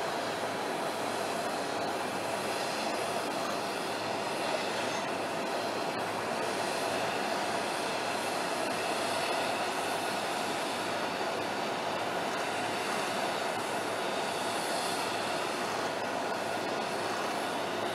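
Steady jet aircraft noise on an airport apron: an even, unbroken rush with a faint whine in it.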